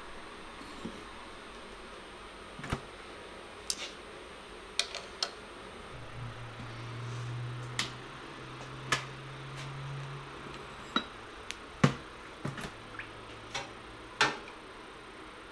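Scattered light clicks and knocks of tongs, firebrick and the door and controls of a small electric heat-treat oven, with a low steady hum for a few seconds midway. Near the end a sharper knock as the tongs with the hot steel washer go into the quench tank.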